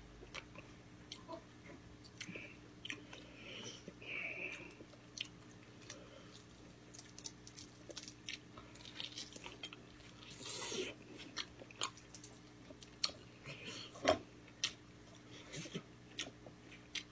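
A person chewing and biting food close to the microphone, with many short mouth clicks and a few louder bites, the loudest about fourteen seconds in.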